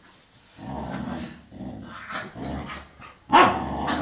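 Dog growling in rough play, in several short stretches, then one loud bark near the end.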